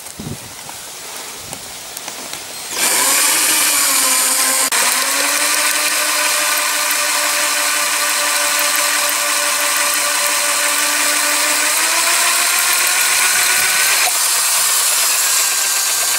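A small electric motor starts about three seconds in and runs with a steady high whine, its pitch stepping up slightly twice near the end.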